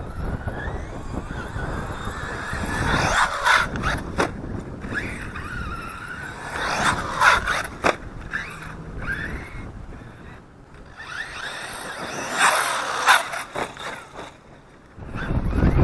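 Redcat BE6S electric RC monster truck's brushless motor whining up and down in short bursts as it is driven hard, with quieter gaps between runs.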